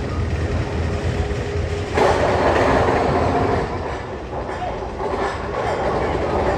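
Magnum XL 200 roller coaster train rolling along its track with a steady rumble and clatter. About two seconds in the noise gets suddenly louder for a second or two.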